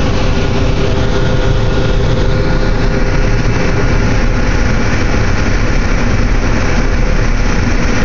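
John Deere 9750STS combine running under load while harvesting corn, heard from inside the cab: a loud, steady drone of engine and threshing machinery with a faint, steady whine riding on it.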